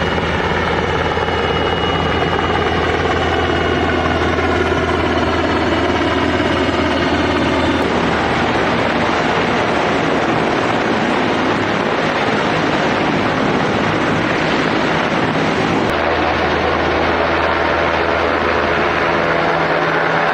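Coast Guard helicopter flying low overhead, a loud steady rotor and turbine noise with a low hum. During the first several seconds a stack of engine tones falls in pitch as it passes.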